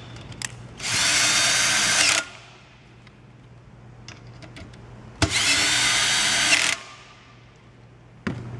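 Cordless drill driving screws snugly down into a U-shaped metal frame base: two runs of about a second and a half each, the motor whining steadily, then stopping.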